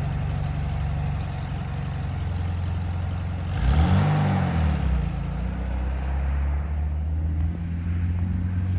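Air-cooled flat-four engine of a 1973 VW Super Beetle running as the car pulls away. The revs rise and fall once about four seconds in, then the engine settles back to a steady note.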